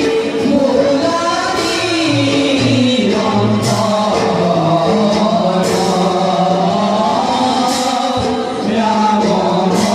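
Several male voices singing a devotional song together in long, held notes, as in Bhaona singing. A sharp percussive strike falls about every two seconds.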